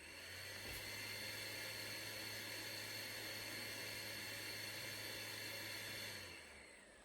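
Acer C250i portable DLP projector running just after being switched on: a steady fan hiss with a high whine and a low hum, which dies down about six seconds in.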